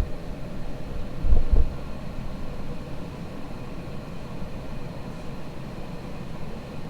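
Casablanca Delta II ceiling fan running with a steady motor hum and the rush of its blades, its bearings a little dry and noisier, as the owner says. A couple of low thumps come about a second and a half in.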